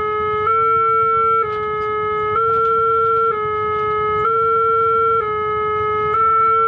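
Railway level-crossing warning alarm sounding: an electronic two-tone signal that alternates between a lower and a slightly higher pitch about once a second, warning that a train is approaching.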